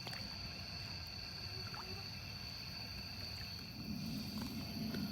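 Night insects, crickets, trilling steadily at one high pitch over a low rumbling background; a low hum joins about four seconds in.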